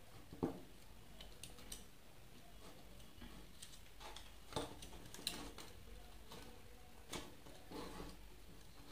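Faint, irregular clicks and light taps as a wooden ring wound with copper wire is handled and turned over on a wooden board.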